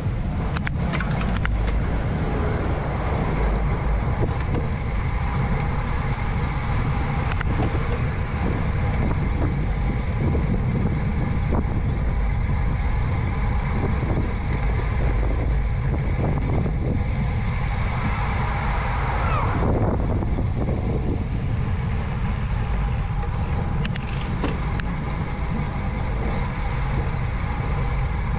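Wind rushing over the microphone of a bicycle-mounted action camera while riding at about 12–17 mph, a steady low rumble with tyre noise. A brief falling tone comes about two-thirds of the way through.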